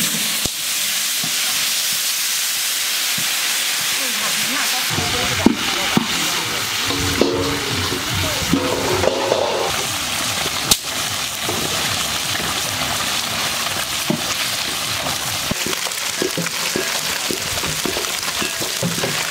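Climbing perch (koi fish) deep-frying in a large pan of hot oil: a steady sizzle with scattered pops, starting sharply as the fish go in.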